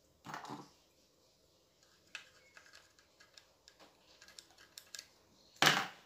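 Light clicks and taps of a stereo's power circuit board being handled over its sheet-metal chassis, with one louder knock near the end.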